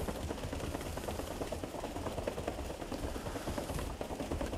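Rapid bare-footed steps on a tatami judo mat, running on the spot at full speed, over a low steady hum.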